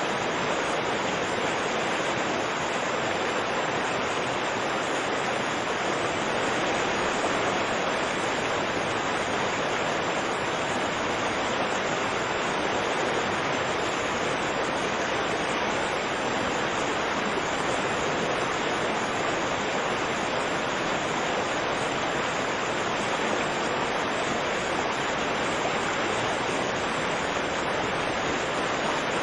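A fast, rushing river: a steady, unbroken rush of turbulent water.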